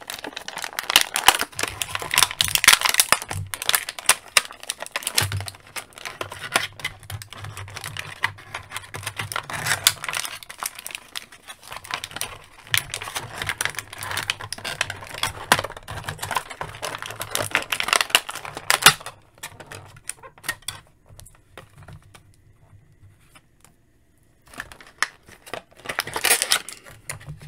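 Clear plastic packaging crinkling and clicking as an action figure and its cape are worked out of a plastic tray and bag, with a lull of a few seconds near the end before the crinkling picks up again.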